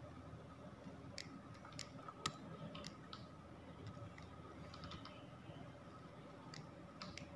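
Faint, irregular clicks of a computer mouse and keyboard, with one louder click a little over two seconds in, over a steady low hum.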